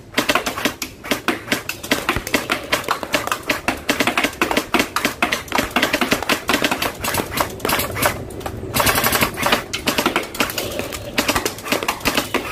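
Battery-powered Jinming M4A1 gel blaster firing a rapid string of shots, a fast even run of sharp clacks from its gearbox, with a denser, brighter burst about nine seconds in.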